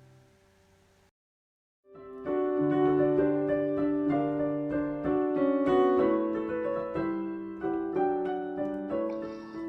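A last chord fades out, the sound cuts to dead silence for just under a second, and then a solo piano begins playing gentle, slow chords and melody.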